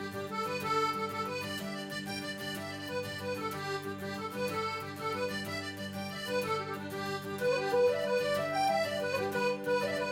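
Background music led by accordion: a melody moving over steady sustained bass notes.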